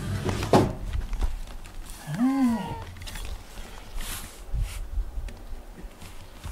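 A domestic cat gives one short meow about two seconds in, its pitch rising then falling. Low rustling and bumping runs under it, with a sharp knock about half a second in.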